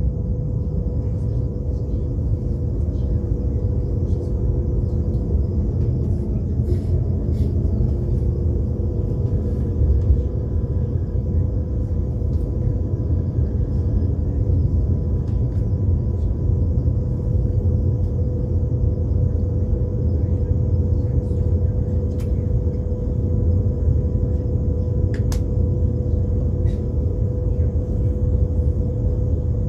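Steady low rumble of a moving passenger train heard from inside the carriage, with a constant hum and a few brief clicks along the way.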